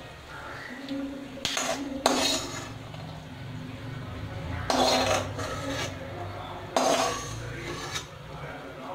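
A metal spatula scraping and knocking against a metal kadhai (wok) as the last fried peanuts are scooped out, with louder clattering scrapes about one and a half, two, five and seven seconds in.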